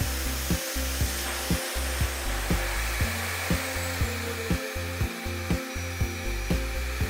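SEBO Airbelt K cylinder vacuum cleaner running steadily, a continuous motor and airflow whoosh, under background music with a steady beat.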